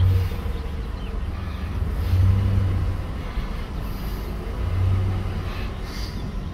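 Pickup truck engine running, heard from inside the cab while the truck rolls along at about 5 mph; its low drone swells three times, about two and a half seconds apart.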